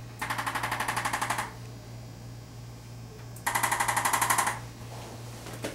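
Arthrostim handheld chiropractic adjusting instrument tapping into a surgical scar. It runs in two rapid bursts of about a second each, about ten taps a second, with a pause of about two seconds between them.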